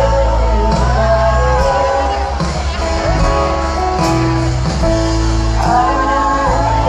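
Indie folk-rock band playing live, amplified, with singing over a steady bass line.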